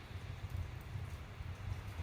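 Wood fire burning in a fireplace: a few faint crackles over a steady low rumble.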